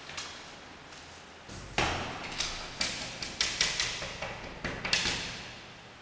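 A door shuts, then hands bang on its glass pane in a fast, uneven run of about a dozen thumps lasting some three and a half seconds.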